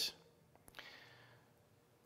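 Near silence, broken about a second in by a faint click and a short, soft intake of breath.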